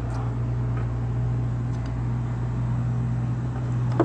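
Steady low mechanical hum, with a few faint clicks of small metal lock parts being handled and one sharper click near the end.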